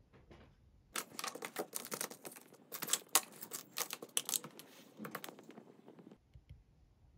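Small desk items being picked up and set down on a wooden desk: a quick, dense run of clicks, taps and rustles that starts about a second in and stops after about five seconds.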